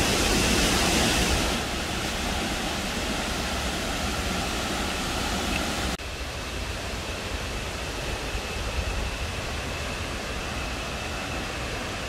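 The Misol-Ha waterfall, a tall jungle waterfall pouring into a pool, gives a steady rushing noise. It drops a little about a second and a half in and again halfway through.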